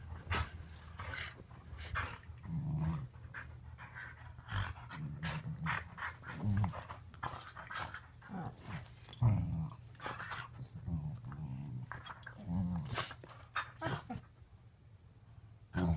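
Two dogs, a beagle and a curly-coated white dog, wrestling on a couch: repeated short low growls, with scuffling of paws and fur against the cushions. The growling comes in irregular bursts every second or two, loudest about halfway through, and dies down near the end.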